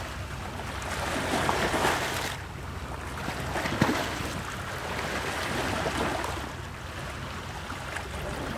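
Water washing along a moving boat, with a steady low engine hum underneath.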